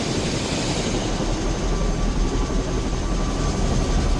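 Helicopter running steadily, a dense, even rotor and engine noise.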